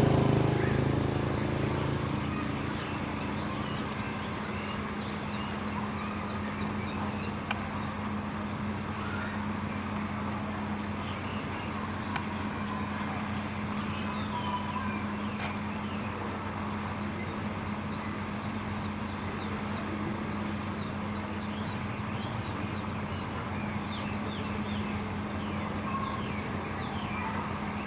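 A steady low machine hum, with a louder engine-like sound fading out over the first couple of seconds. Birds chirp over it in many short, quick falling notes through much of the rest.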